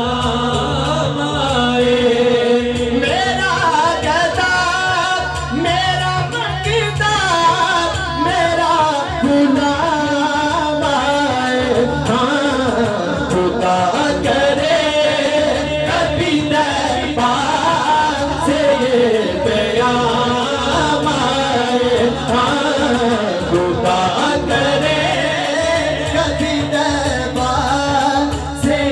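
A man singing a naat, a devotional song in praise of the Prophet, with a wavering, ornamented melody over a steady low drone that comes and goes.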